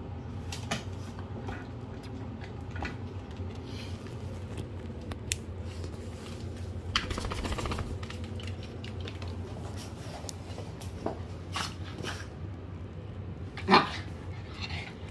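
A small pet dog making sounds while playing, with scattered scuffles and a short, sharp yip near the end, over a steady low hum.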